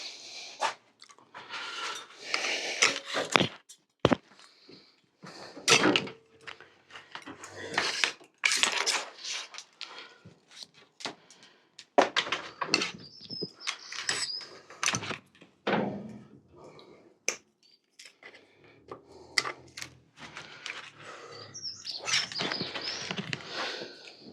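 Irregular clicks, knocks and scraping of hand work on a bicycle's handlebar as a plastic bike computer and its mount are taken off, with birds chirping faintly in the background.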